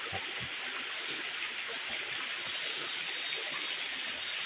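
Steady rushing of a flowing forest stream, a higher hiss growing louder about halfway through.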